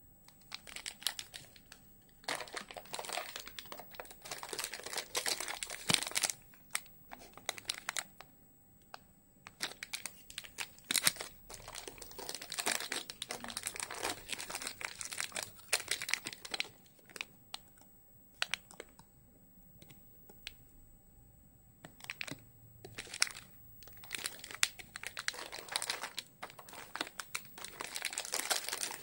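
Plastic Orion Choco Pie wrappers and other candy packets crinkling as hands rummage through and handle them, in irregular bursts with short pauses.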